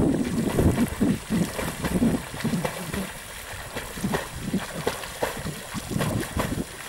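Wind buffeting the microphone in irregular low rumbles, with water splashing from a swimmer's strokes.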